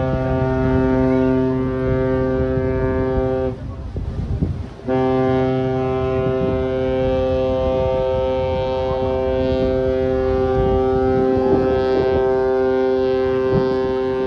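Ship's horn giving long, steady blasts with several tones sounding together: one blast stops about three and a half seconds in, and a second long blast starts about a second and a half later and is held.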